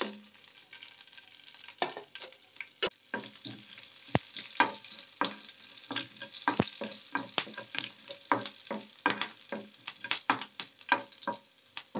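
Green chillies and cumin and mustard seeds sizzling in hot coconut oil, crackling with many irregular sharp pops as the seeds splutter. A wooden spatula stirs and scrapes through them in the pan.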